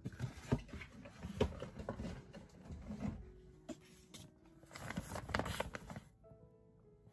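Paper and a clear plastic sleeve rustling and crinkling as they are handled, in several irregular bursts with small clicks, the loudest about five seconds in.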